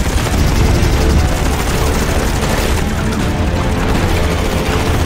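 Fighter jet's cannon firing in a long, continuous burst over loud jet engine noise, mixed with the film's action score.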